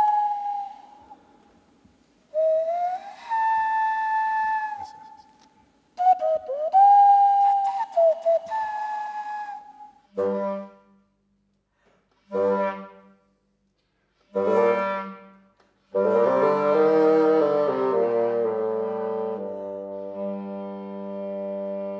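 Cupped-hand whistling, played like an ocarina: a pure whistle that slides up to a note and holds it, in three phrases. About ten seconds in, a bassoon and clarinet duet follows: three short separate notes, then a long held chord with the bassoon sounding low beneath the clarinet.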